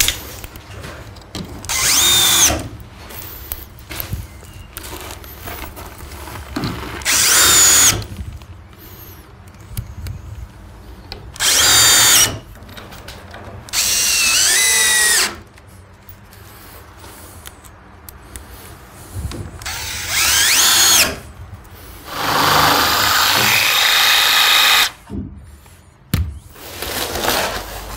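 Cordless screwdriver driving screws into the shed's wooden floor: about six short runs of a whining motor, each one to two seconds long, its pitch rising as it spins up, with pauses between screws.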